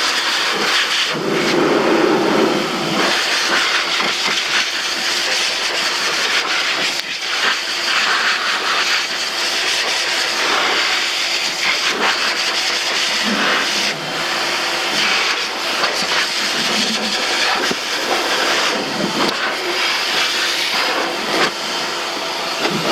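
AIIYME SH-168 pet grooming dryer running, a steady hiss of rushing air over a faint motor hum as it blows a small dog's coat dry.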